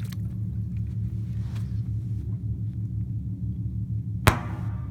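M5000 salute firecracker exploding underwater: a single short, sharp pop about four seconds in, over a steady low rumble.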